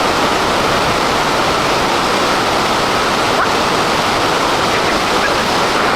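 Steady, loud rush of flowing water, like a waterfall or fast stream.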